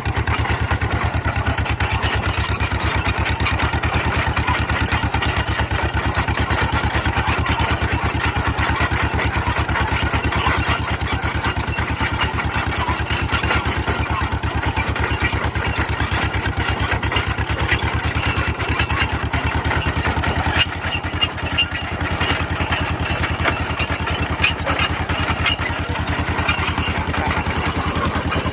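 1954 John Deere 40 crawler dozer's two-cylinder engine running steadily, with a brief drop in sound about three-quarters of the way through.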